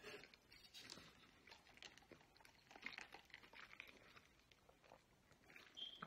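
Faint chewing of breaded chicken tenders in buffalo sauce, soft irregular mouth clicks and crunches, ending with a brief sip through a straw.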